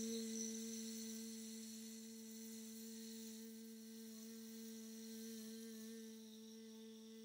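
A woman sustaining a voiced 'zzz' on one steady pitch for as long as she can, as in a maximum phonation time trial for the S-Z ratio. The buzz fades gradually and its hiss thins out as her breath runs low.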